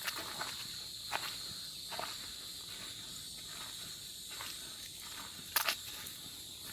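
Footsteps of a hiker walking along a forest path, about one step a second, with a louder double step about five and a half seconds in. A steady high insect drone runs behind them.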